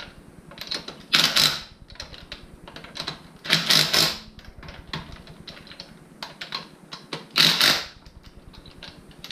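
Cordless impact tool hammering lug nuts tight on a car wheel in three short bursts of about half a second each, a couple of seconds apart.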